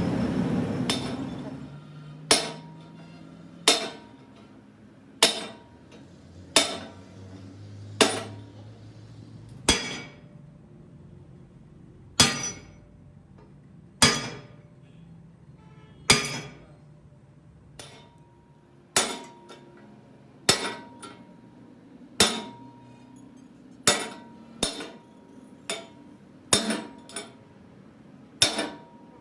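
Hammer striking steel about twenty times, blows spaced one to two seconds apart, each leaving a brief metallic ring; this is hammering on a truck differential axle tube during its repair.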